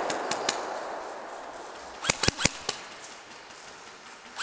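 Airsoft guns firing: a few shots at the start, a quick burst of about six sharp cracks about two seconds in, and a single shot near the end.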